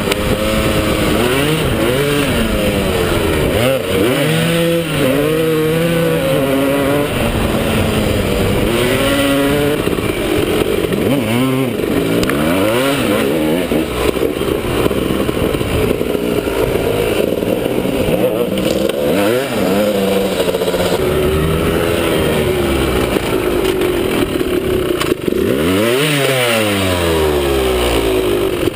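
Trail dirt bike engine heard close up from the bike being ridden, revving hard, its pitch climbing and dropping again and again as the rider throttles up and changes gear. Near the end the pitch dips deeply and climbs back.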